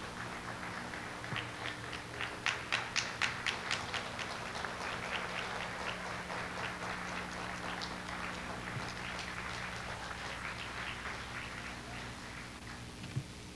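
Audience applauding, with a run of louder sharp claps about two to four seconds in; the applause thins and fades toward the end, over a steady low hum.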